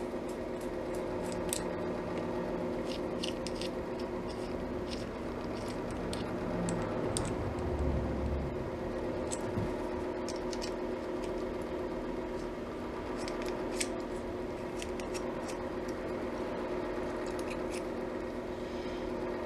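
Small metallic clicks and scrapes from rivets being worked into the rivet holes of a speaker mount on a radio chassis. A steady hum runs underneath.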